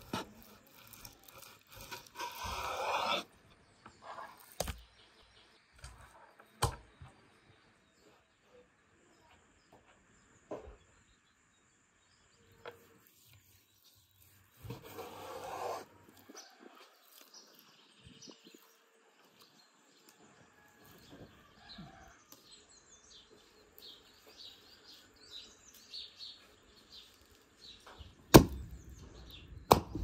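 A large kitchen knife slicing raw lamb on a wooden cutting board: short scraping strokes through the meat and a few knocks of the blade on the board, with birds chirping faintly behind. Near the end a single sharp, loud cleaver blow strikes the lamb carcass on a wooden chopping block.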